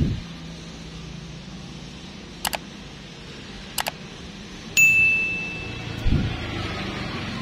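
Two quick double mouse-clicks followed by a bright bell ding that rings out and fades over about a second: the sound effects of a subscribe-button animation. A low knock of metal parts being handled on the flow meter comes at the start and again near the end.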